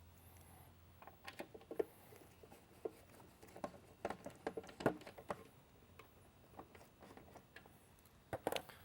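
Scattered light clicks and taps of small plastic parts being handled: the protective casing coming off a strobe power supply and its quick-disconnect wiring harness being unplugged.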